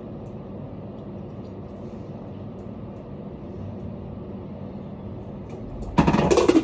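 Steady low background rumble with a faint steady hum, then a loud sudden noise about six seconds in that lasts about half a second.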